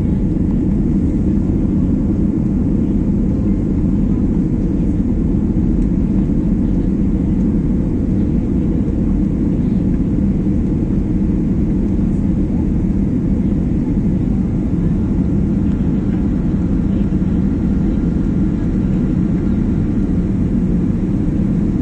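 Steady low roar of a jet airliner's engines and airflow, heard from inside the passenger cabin during the climb after takeoff.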